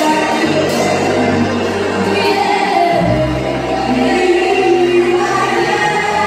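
Live gospel worship music: singing over amplified accompaniment, with a held bass line that moves to a new note about three seconds in.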